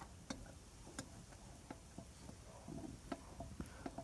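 Faint, irregular small clicks and taps of fingers working a plastic bulb holder into a car headlight housing, with a soft rustle about three seconds in.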